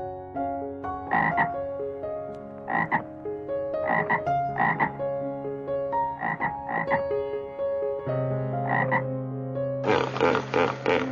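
Frog croaking: about eight short croaks, several in pairs, over steady tones that step in pitch like background music. Near the end a hippopotamus in water takes over with louder, noisier grunting.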